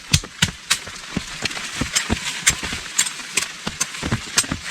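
Irregular sharp taps and clicks, roughly three to four a second, over a faint background.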